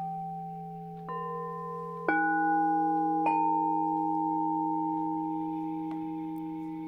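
Singing bowls struck and left ringing over a low steady drone, with three new strikes about a second in, at two seconds (the loudest) and near three and a half seconds, their tones overlapping and slowly fading.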